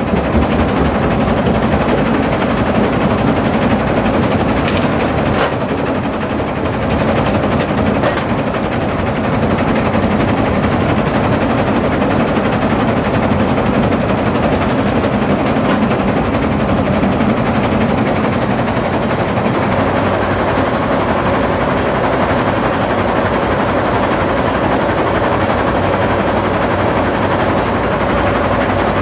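McNally Bharat jaw crusher running loud and steady, its jaws grinding and cracking hard iron-ore boulders in a rapid rattle, with a few sharper cracks about five to eight seconds in.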